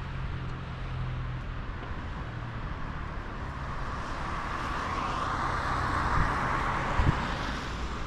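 Motor traffic: a steady low engine hum under road noise, with a passing vehicle swelling up and fading in the second half, and two short low thumps near the end.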